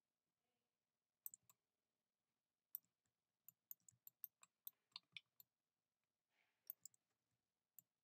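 Faint clicking of a computer mouse and keyboard: a few single clicks, then a quick run of about ten around the middle, and a few more near the end.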